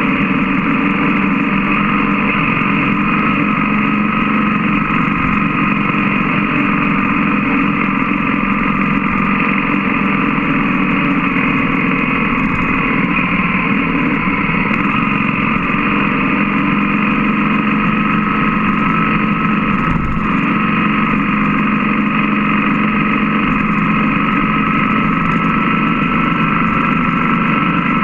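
BMW GS boxer-twin motorcycle engine running at an even cruise, heard from a camera mounted on the bike, with steady wind and road noise. The engine note holds steady and rises slightly near the end.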